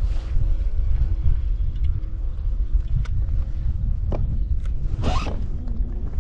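Wind buffeting the microphone with a steady low rumble. A few light clicks and a short rasping zip about five seconds in.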